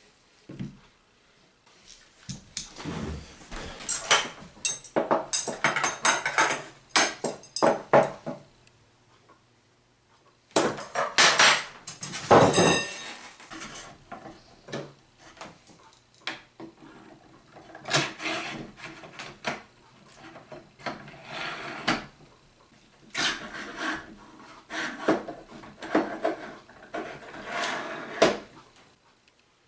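Parts and tools of a 3D printer kit being handled during assembly: irregular clatter, knocks and clicks in bursts, with a pause of about two seconds about eight seconds in.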